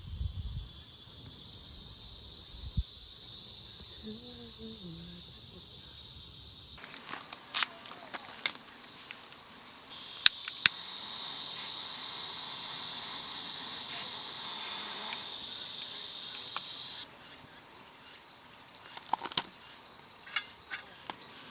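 Steady, high-pitched chorus of summer insects chirring, its character changing abruptly about seven seconds in and again near seventeen seconds, with a couple of sharp clicks about ten seconds in.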